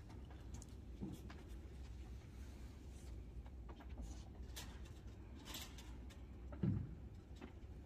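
Quiet room tone of a large indoor hall with a steady low hum, a few faint clicks and knocks, and one dull thump near the end.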